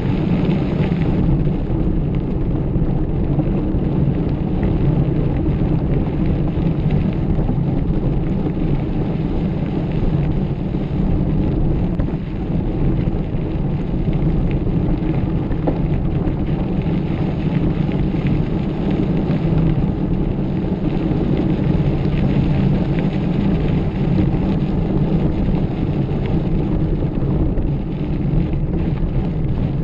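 Steady loud rumble of wind on the microphone and tyres on a dirt trail during a mountain-bike ride, with no breaks or distinct strikes.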